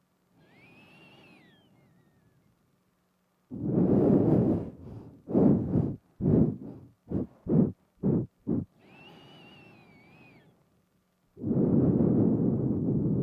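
Nose breathing right up against a binaural microphone. A quiet inhale with a faint whistle is followed by a loud exhaled puff and a quick run of short puffs. Another quiet whistling inhale comes next, then a long, loud exhale.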